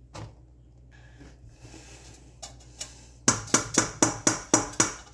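An egg tapped rapidly against the rim of a stainless steel mixing bowl to crack it: about seven sharp clicks in under two seconds, starting about three seconds in. A single softer knock comes just before.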